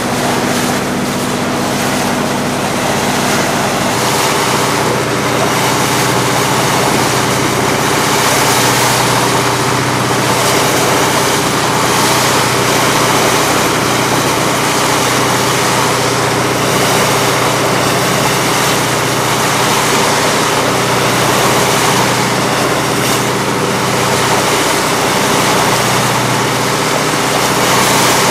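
Steady hum of the motor boat's engine underway, with water and wind noise. The engine note shifts slightly about four seconds in.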